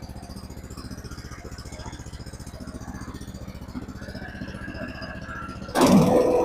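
Small petrol engine of a Forest Master FM8DD wood chipper running on its first start, with the choke on and the throttle at about a quarter, a steady fast pulsing. Near the end it suddenly gets much louder and fuller.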